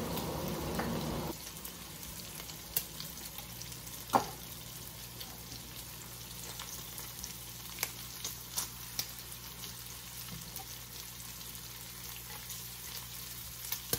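Bacon frying in a cast iron skillet: a steady sizzle with scattered small pops and clicks, and one sharp tap about four seconds in.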